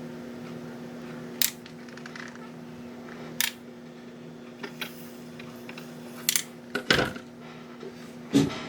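Scattered sharp clicks and clinks of small hard parts and tools being handled, about nine in all, the loudest near the end, over a steady low hum.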